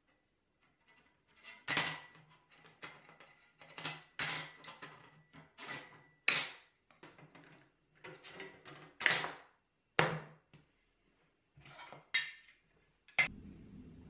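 Tin snips cutting thin brass sheet: about a dozen crisp metallic snips, roughly one a second, with the long strip giving a faint ringing tone through the first half.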